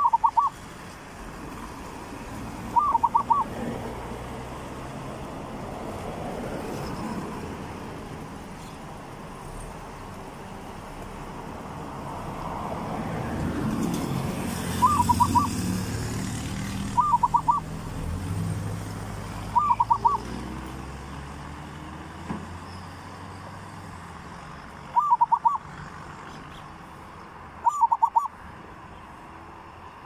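Zebra dove cooing: seven short phrases of quick rolling notes, a few seconds apart, over a low background rumble that swells midway.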